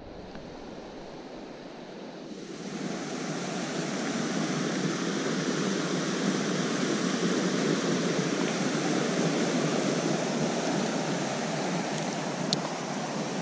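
Steady rush of a shallow creek running over rocks, growing louder a few seconds in, with a single sharp click near the end.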